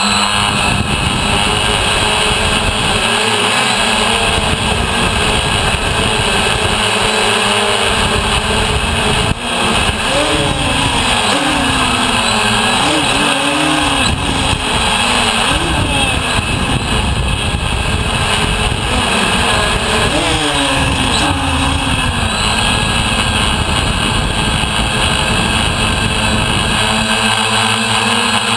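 DJI Flame Wheel F550 hexacopter's six electric motors and propellers whining in flight, heard close up from a camera on the frame, over a dense rushing haze of prop wash and wind. Through the middle the whine wavers, rising and falling in pitch as the motors speed up and slow down, and it is steadier near the start and end.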